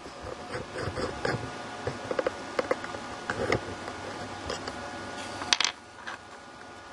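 Turned steel parts and metal swarf being handled on a wooden bench: scattered light clicks and rustles, with one sharper click about five and a half seconds in, over a faint steady hum.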